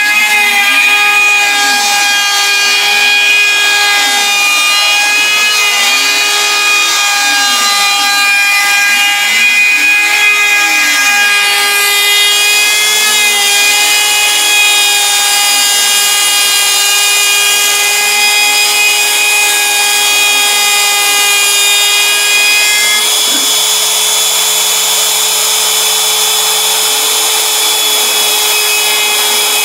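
Bosch Colt palm router spinning a two-flute end mill through bamboo on a CNC Mogul machine: a steady high whine with cutting noise. Under it a lower tone rises and falls about every two seconds as the bit is fed around.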